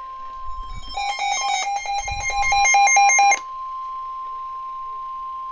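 NOAA Weather Radio's steady 1050 Hz warning alarm tone sounds, the attention signal that comes before a warning message. From about one to three and a half seconds in, a louder, rapid electronic beeping of several tones at once plays over it and then cuts off suddenly.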